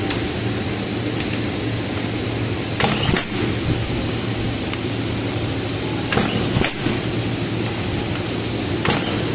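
Semi-automatic pneumatic aerosol filling machine for metered-dose inhaler canisters cycling: three short bursts of air hiss about three seconds apart over a steady low hum, with light clinks of the small metal canisters being handled.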